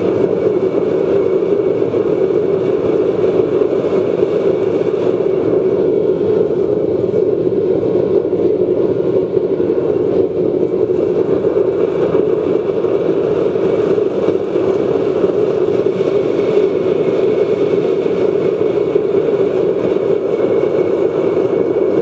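Waste oil burner running on forced air from a 12-volt bilge blower: a steady rush of flame and air with the blower's whir.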